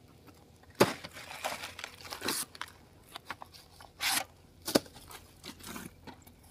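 Woven plastic feed-sack snake trap crinkling and rustling as a gloved hand picks it up and handles it, with a few sharp crackles along the way.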